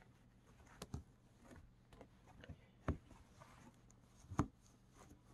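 Quiet rustling of a fabric corset mock-up being smoothed and handled, with three soft knocks about one, three and four and a half seconds in.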